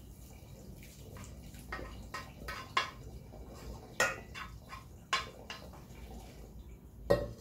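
Wooden spoon scraping and knocking against a frying pan as hot cooked minced beef is tipped into a stainless steel colander, about ten irregular knocks over the sound of the fat draining through.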